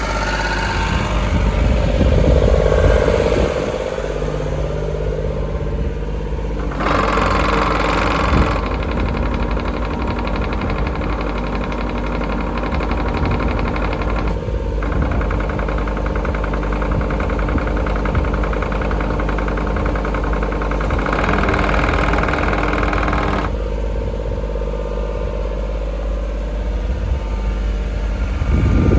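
JCB 60C-2 midi excavator's diesel engine running steadily, with two brief stretches of extra higher-pitched sound as the machine works.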